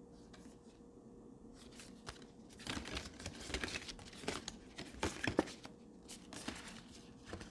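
Greeting cards of thick cardstock being handled, a card turned over and shuffled: after a quiet start, a cluster of papery rustles and light taps a few seconds in, with a couple more near the end.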